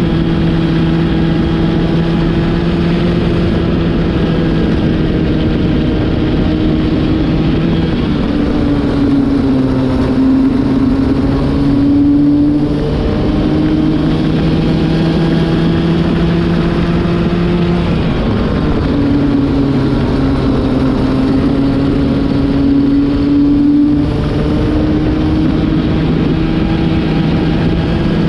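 Racing kart engine at high revs, heard from on board at speed, with the new engine being run in. The engine note holds steady, then twice dips in pitch and climbs back up as the kart slows for a corner and accelerates out.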